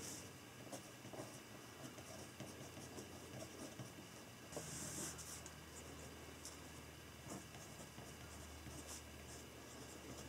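Pen writing on notebook paper: faint scratching in short strokes, with a longer stroke about halfway.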